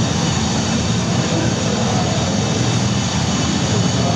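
Steady jet-engine sound effect played over loudspeakers for the model airliners of an HO-scale model airport, running evenly without a clear rise or fall.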